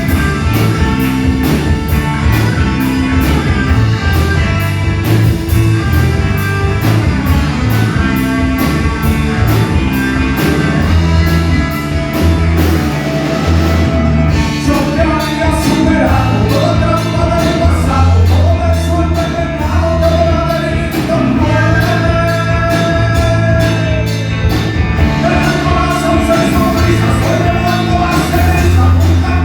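A rock band playing live, with singing over drums, bass and guitar.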